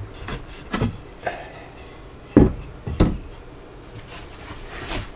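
Several wooden knocks and bumps as a length of 2x3 lumber is handled and fitted into place, the loudest two about two and a half and three seconds in.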